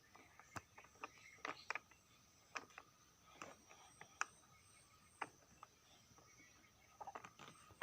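Faint scattered clicks and taps of a plastic baby walker being handled, against near silence.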